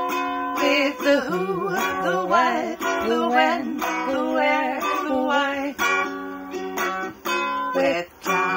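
Homemade intro song: a voice singing a melody over a strummed stringed instrument with a steady beat.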